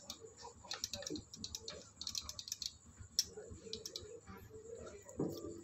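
Faint, irregular light metallic clicks and ticks from the valve tappet adjuster and rocker arm of a Yamaha Mio Sporty's cylinder head being worked by hand while the valve clearance is set.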